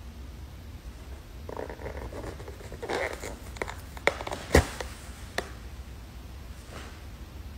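Styrofoam takeout clamshell being eased open: the foam lid squeaks and scrapes, with three sharp clicks as the latch tabs pop, the middle one loudest.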